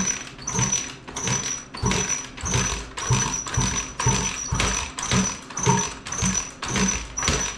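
A 1990 Honda XR80R's 80cc four-stroke single being kicked over on the kickstarter, about two quick kicks a second with a short high squeak on each stroke, the engine turning over without firing. The kicks meet next to no resistance: the engine has no compression.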